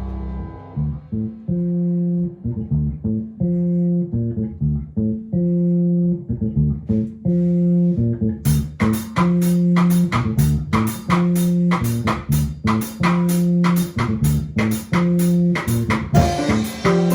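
Bass guitar playing a repeating, syncopated Latin-style riff of short low notes. About eight seconds in, sharp percussive strikes join it in rhythm.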